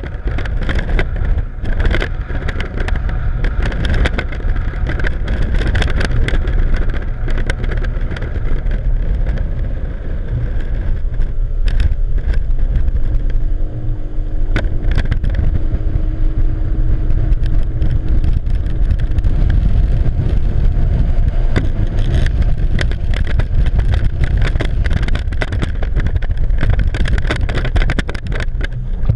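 Twin outboard motors driving a rigid inflatable boat at speed through chop, under a heavy low rumble of wind on the microphone, with frequent knocks and slaps of the hull and spray on the water.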